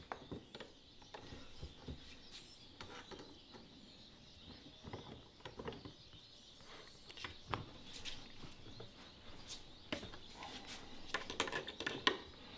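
Faint, irregular metal clicks and scrapes of needle-nose pliers gripping and bending over a cotter pin through the spreader's wheel axle, with a cluster of sharper clicks near the end.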